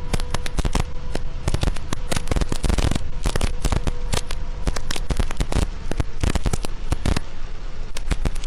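Heavy rain pelting a vehicle's windshield and cab, a dense, irregular crackle of drop impacts, with a faint steady hum underneath.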